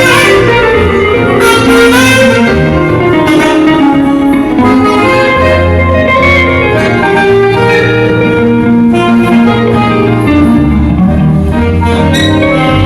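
Saxophone playing a melody over full instrumental accompaniment with a bass line, continuous and loud.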